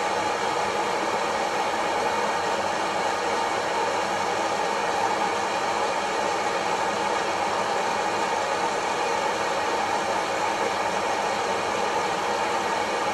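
Kaffelogic fluid-bed coffee roaster mid-roast: its fan blowing hot air up through the roasting chamber with a steady, even whoosh.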